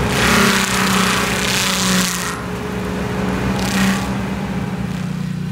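Walking excavator's engine running steadily while its stump-grinding mulcher head tears into a tree stump. The grinding comes in two loud spells: a long one over the first two seconds and a short one near four seconds.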